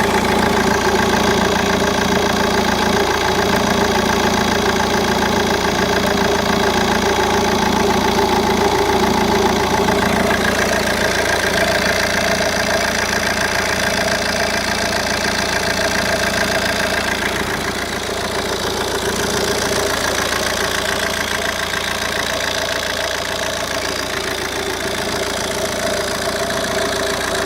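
Opel/Vauxhall Vectra C's 1.9 CDTi Z19DTH four-cylinder turbodiesel idling with the air conditioning on, with a strange rattle that comes only with the AC switched on and persists despite a brand-new AC compressor. The tone shifts about ten seconds in and dips slightly near eighteen seconds.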